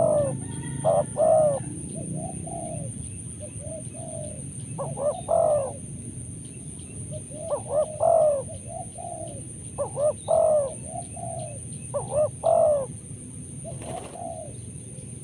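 Spotted doves cooing: repeated phrases of several rolling notes, one phrase every two to two and a half seconds. A brief flutter of wings about a second before the end.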